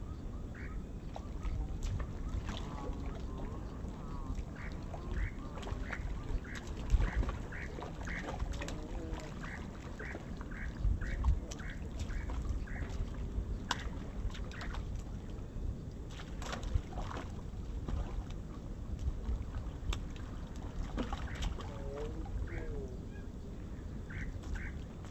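A bird calls over and over in short, evenly spaced notes above a low rumbling outdoor background. A hooked carp thrashes and splashes at the water's surface, with sudden splashes and knocks scattered through.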